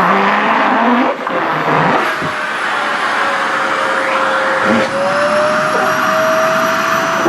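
SHARP EC-KP7F-A vacuum cleaner running steadily, a loud rushing hiss with a motor whine that wavers slightly in pitch. There is a brief dip just after one second, and a few short flutters as the suction pulls at cloth.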